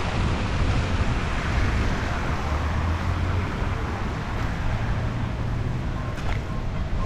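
Wind buffeting the microphone in uneven low rumbles over a steady outdoor rush of noise.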